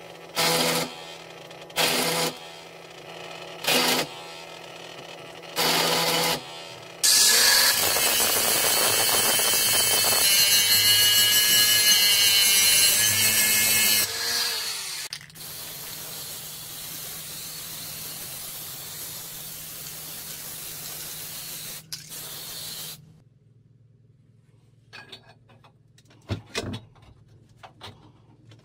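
Arc welder laying a series of short tack welds on a steel bar frame, five brief bursts a second or two apart. Then an angle grinder grinds the weld for about seven seconds, followed by a quieter steady hum that stops suddenly, and a few light knocks of steel being handled near the end.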